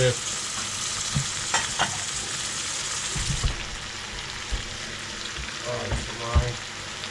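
Seasoned curry chicken frying in a pot: a steady sizzle, with a spoon stirring and knocking against the pot several times. The sizzle turns softer about halfway through.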